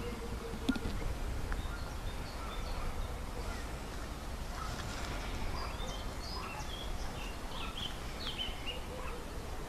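Several small songbirds chirping and singing in short, scattered phrases, busiest in the second half, over a steady low rumble.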